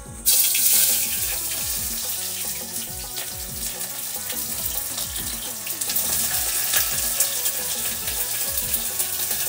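Chopped onion hitting hot mustard oil in a pressure cooker and sizzling. It starts suddenly and loud a moment in, then frying steadily as the onion is scraped in.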